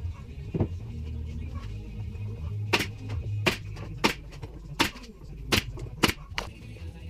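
Pneumatic nail gun driving nails into pine boards, seven sharp shots in about four seconds, starting a little under three seconds in.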